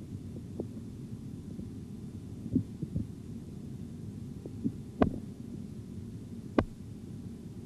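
Stethoscope sound over the arm artery while the blood-pressure cuff deflates, still above systolic pressure: a steady low rumble with a few scattered sharp clicks, and no regular Korotkoff tones yet.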